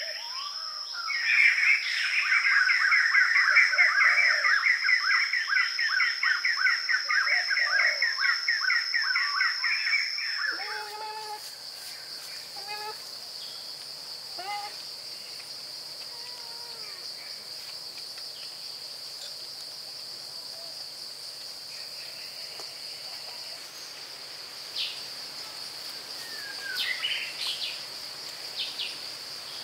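Forest ambience: a steady high-pitched insect drone with a loud, fast trill over it for about the first ten seconds. The trill then stops abruptly, leaving quieter background with a few short bird chirps near the end.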